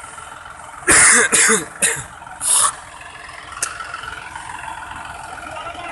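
A person coughing four times in quick succession, starting about a second in, over the steady running of a tractor engine. A single sharp click follows near the middle.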